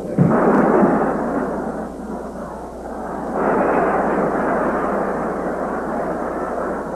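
Large stadium crowd roaring, muffled and narrow in range like an old film soundtrack. It jumps up suddenly just after the start, eases off, then swells again about three seconds in.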